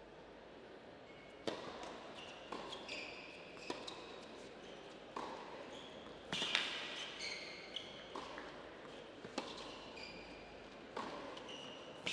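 Tennis rally on an indoor hard court: a serve struck about a second and a half in, then racket strikes and ball bounces every second or so, each echoing in the hall. Short high shoe squeaks on the court come between the hits.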